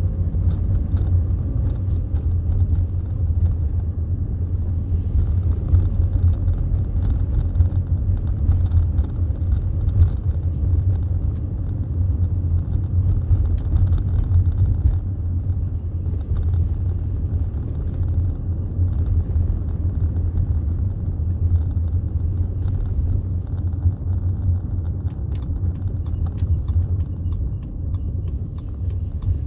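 2005 BMW 320d E91 touring driving along, its 2.0-litre four-cylinder turbodiesel running with road noise in a steady low rumble.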